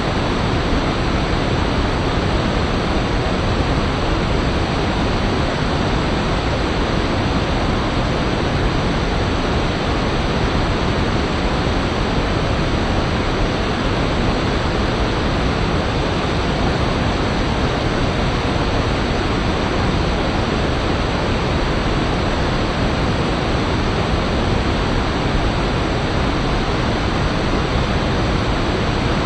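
A fast river rushing, a steady loud rush of moving water with no breaks.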